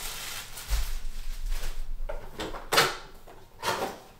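Rustling and knocks from a boxed keyboard being carried and handled: a low bump about a second in, then two sharp clacks a little under a second apart near the end.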